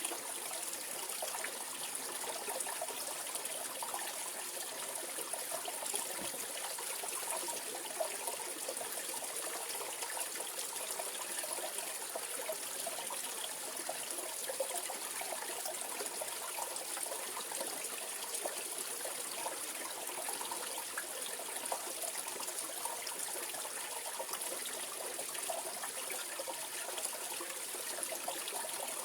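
Mountain valley stream running steadily over rocks, with a continuous rush and fine bubbling and splashing.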